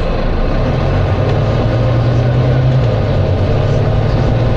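Volvo B9TL double-decker bus engine running steadily with a low drone that rises slightly in pitch about a second in.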